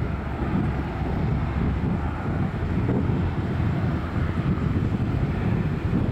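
Boeing 747-8F cargo jet's four engines running at high power on the takeoff roll, a steady deep rumble. Wind buffets the microphone.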